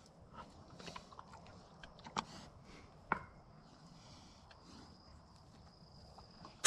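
Two trapped wild hogs moving about a muddy wire pen: quiet, with a few faint clicks and snaps about two and three seconds in, and a faint high steady tone in the second half.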